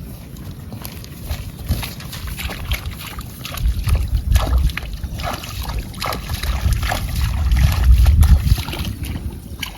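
Cattle walking through a wet rice paddy: a run of short sloshing and splashing strokes. Wind rumbles on the microphone twice, about a third of the way in and again toward the end, and these are the loudest parts.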